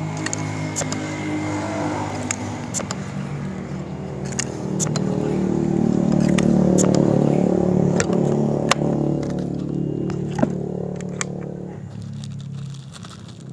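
A motor vehicle's engine passing by, the hum swelling to a peak about halfway through and fading away near the end, with several sharp clicks scattered through it.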